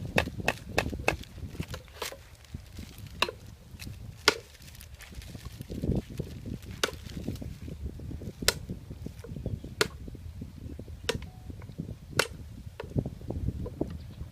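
A blade chopping, a dozen or so sharp blows: quick ones at first, then one about every second or so.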